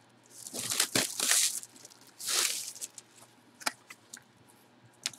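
Gloved hands sliding over and turning a cardboard box: a few scraping swishes, then some light taps and knocks.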